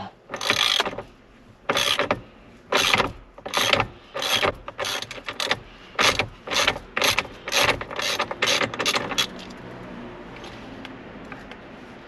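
Ratchet wrench clicking in short strokes as a 24 mm socket backs off the steering-wheel retaining nut, which has just been broken loose. About fifteen strokes, coming faster towards the end, then stopping about nine seconds in.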